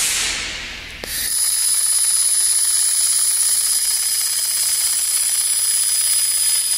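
Handheld laser welder running a long seam on 3 mm steel plate: a loud, steady high-pitched whine of several held tones that starts about a second in, after a fading hiss of shielding gas.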